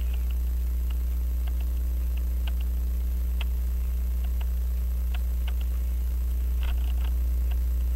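Steady low electrical hum, with a few faint, scattered ticks and clicks.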